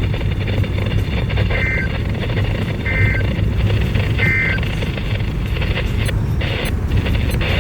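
Three short, buzzy two-tone SAME digital data bursts from a NOAA Weather Radio broadcast, about 1.3 s apart, played through a weather radio's speaker over steady static and a low hum; coming after the spoken required weekly test, they are the end-of-message code that closes the alert.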